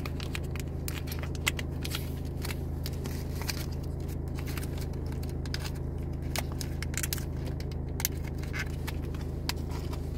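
Crinkling and crackling of a small plastic collectible packet handled and torn open by hand, many short sharp crackles at irregular moments, over the steady low hum of the car.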